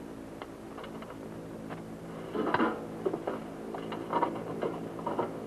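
A few scattered knocks and bumps of men moving and climbing through a B-17's bomb bay, the strongest about two and a half seconds in, over the steady hum of an old film soundtrack.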